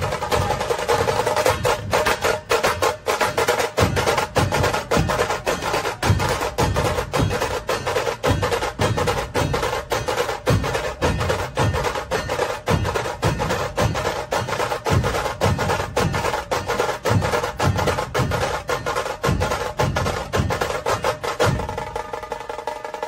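Procession drums played fast and loud, rapid sharp strikes over deep beats that come more than once a second, with steady held tones underneath. The drumming stops near the end while the tones carry on.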